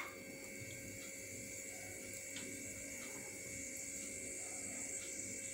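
Faint steady electrical hum with a high-pitched whine over it, broken by a few faint ticks.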